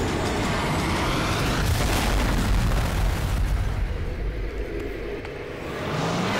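Plane crash explosion, a TV drama sound effect: a loud rumbling boom that swells about two seconds in and fades away over the next few seconds.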